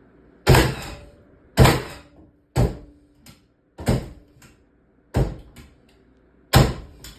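Cordless framing nailer bump-firing six nails, one sharp shot about every second and a quarter, each followed by a brief fainter click.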